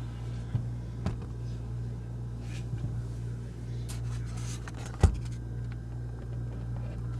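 Steady low electrical hum from the test bench electronics, with a few handling clicks and rustles. The loudest knock comes about five seconds in.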